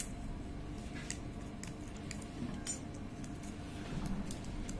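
Faint handling of a coin-cell battery being peeled out of its paper-and-plastic blister pack, with a few light clicks and crinkles scattered through.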